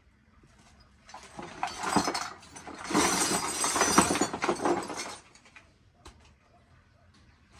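Hard objects clattering and clinking together in a dense jangle for about four seconds, loudest about three seconds in, with scattered faint ticks before and after.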